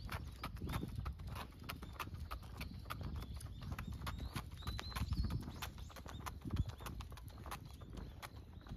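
A small dog's boots tapping on concrete pavement as it trots on a leash: a quick, irregular patter of clicks, several a second, over a low rumble.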